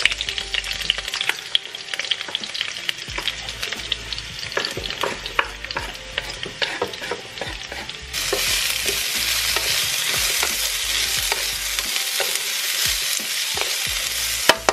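Sliced bell peppers and onion frying in hot oil in a wok, with a wooden spatula knocking and scraping against the pan in many sharp clicks. About eight seconds in the sizzle turns into a louder, steady hiss.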